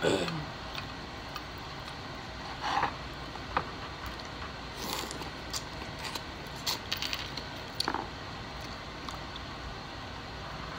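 Eating sounds: a scattering of short wet bites, chews and clicks, including biting into corn on the cob and handling mussel shells.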